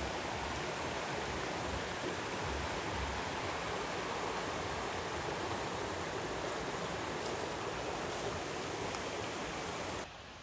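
Steady rush of flowing water, which cuts off suddenly near the end.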